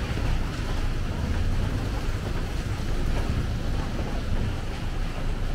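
Steady wash of street traffic on a rain-wet road: tyres hissing on the wet surface over a low, continuous rumble.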